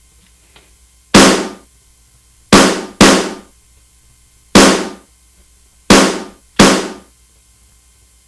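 Yamaha DD-65 digital drum pad played with six single strikes at uneven gaps, each giving a sharp sampled drum hit that dies away in about half a second.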